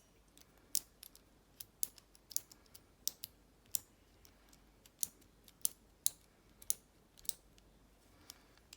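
Combination wheels of a Master Lock four-wheel combination padlock being turned by hand, giving off a string of irregular, sharp little clicks as each wheel steps round its detents.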